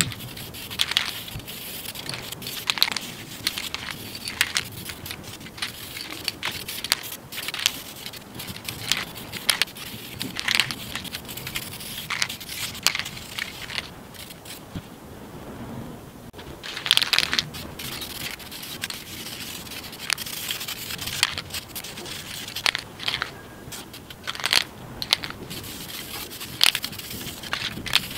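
Aerosol can of VHT flat black high-temperature exhaust paint spraying in many short hissing bursts, with a few longer passes.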